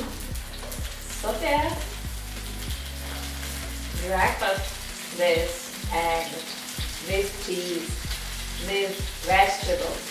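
Zucchini slices sizzling in oil in a nonstick frying pan, a steady hiss, while they are turned over with a spatula and fork. Short louder sounds come over it about six times.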